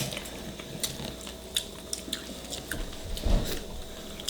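Close-up eating sounds: chewing, with scattered short sharp clicks and a low thump about three seconds in.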